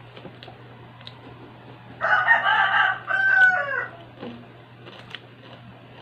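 A rooster crowing once, about two seconds in: a loud call lasting about two seconds that falls in pitch at the end.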